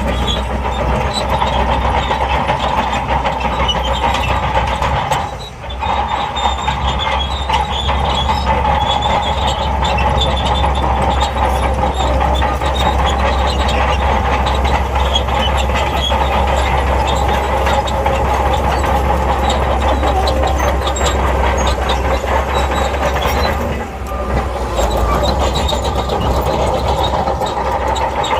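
SHANTUI crawler bulldozer working under load, with its engine running and steel tracks clattering. The noise briefly dips twice, about five seconds in and again toward the end.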